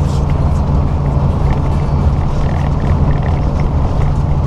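Semi-truck's diesel engine running at a steady cruise, heard inside the cab, over road noise from wet pavement.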